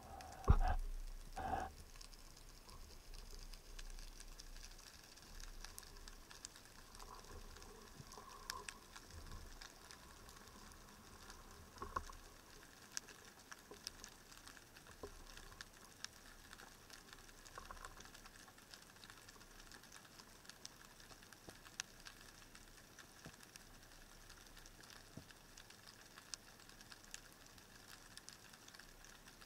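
Faint underwater ambience picked up through a camera housing: a low hiss with many scattered tiny crackling clicks. Two dull knocks sound about half a second and a second and a half in.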